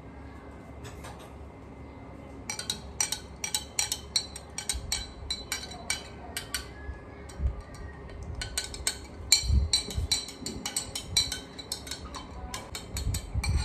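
Metal spoon stirring water in a glass, clinking rapidly against the sides, several clinks a second, starting a couple of seconds in. A few dull low thuds come in among the clinks.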